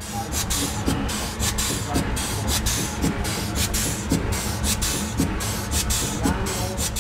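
1916 Cowley steam traction engine running, its exhaust beating in short hissing chuffs about three times a second over a steady low mechanical rumble.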